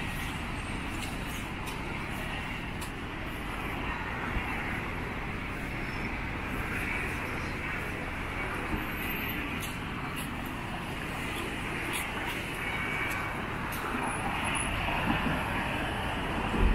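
Steady road traffic noise of a busy city street, with faint voices of people in the background.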